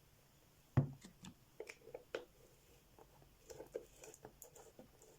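Small clicks and taps of containers and supplies being handled on a tabletop, with one louder knock about a second in.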